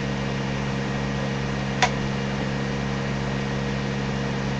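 Steady electrical hum with a few fixed low tones, and a single sharp click just under two seconds in.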